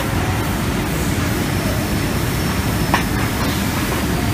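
Scraping robot running over steel grating: a steady mechanical rumble and rattle, with two sharp clicks about three seconds apart.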